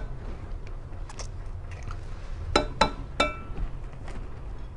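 Eggs being tapped and cracked against the rim of a mixing bowl: a few faint clicks, then three sharp clinks in quick succession about two and a half to three and a quarter seconds in, the last ringing briefly.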